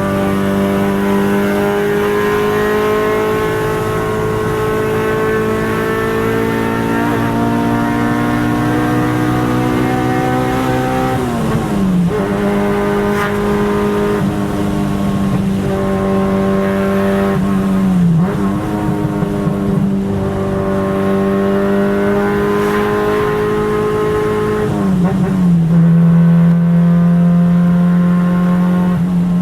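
Car engine running hard at high revs, its pitch holding nearly level with a slight climb, then dipping briefly three times and settling lower near the end.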